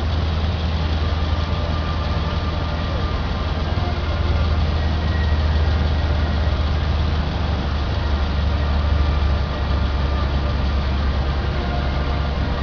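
Boat engine running with a steady low drone, getting a little louder about four seconds in and easing back near ten seconds.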